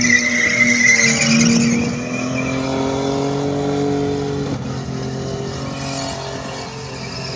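Car doing a burnout: the engine is held at high, fairly steady revs while the spinning rear tyres squeal and smoke on the pad. The tyre noise is loudest in the first couple of seconds and eases off after that.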